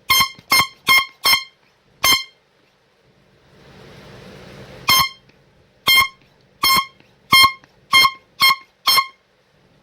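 Dollar-store hand-pump air horn sounded in about a dozen short, sharp, high-pitched blasts. There is a quick run of five, then a pause with a rushing hiss, then seven more. It is really loud.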